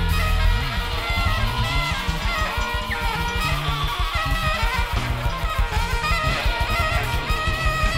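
Free-jazz band playing loud and dense: rapid drumming under overlapping electric guitar, bass and saxophone lines.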